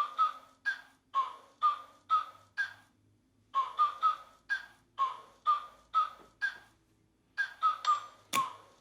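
Music played through an Anker Soundcore Bluetooth speaker: an instrumental intro of short, plucked, bell-like synth notes, about two a second in a repeating phrase, with short pauses and no vocals. A single deep bass hit comes near the end.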